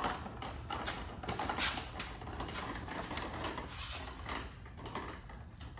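Irregular knocks, clunks and scrapes of wooden 2x4 blocks being fitted under a car's subframe.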